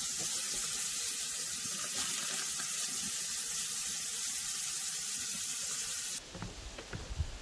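Moose steaks sizzling on a grill over open flame, a steady hiss that cuts off suddenly about six seconds in.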